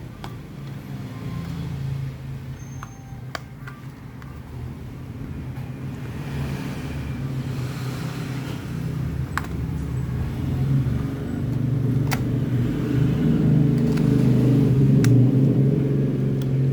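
A car engine running with a steady low hum that grows louder over the last several seconds, with a few light clicks over it.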